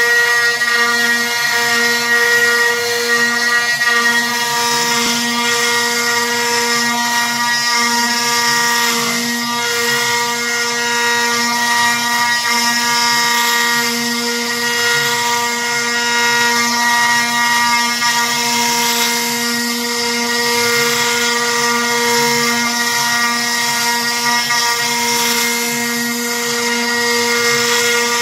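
CNC router's Hua Jiang spindle running steadily at 14,000 rpm, a high whine, as a 6 mm two-flute bit mills plywood. A hiss of cutting rises and falls as the cutter moves through the wood.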